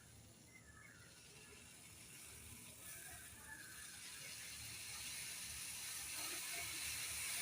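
Milk in a pan on a gas burner coming up to the boil: a faint hiss that grows steadily louder, over a low, uneven rumble.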